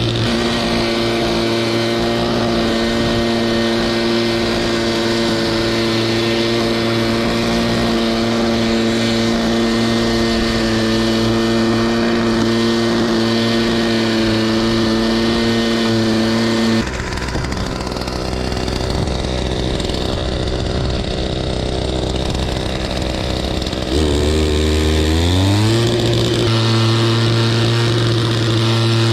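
Kubota GC-S500 walk-behind mower's two-stroke engine running steadily at working speed while cutting grass. A little over halfway through, the note drops lower and quieter for several seconds. Near the end the engine speeds back up in a rising whine and settles to a steady run again.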